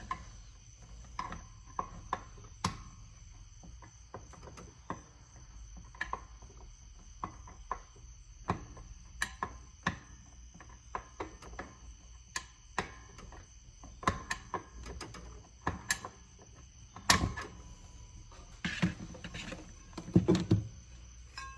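Scattered light metallic clicks and ticks, with a few heavier clunks near the end, from hand work on a Ford 9-inch drum brake as the brake shoes' clearance is adjusted and the drum is checked for drag.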